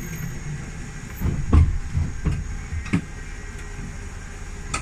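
Open-sided safari tram running with a steady low rumble, its carriage giving several knocks and clunks, the loudest about a second and a half in.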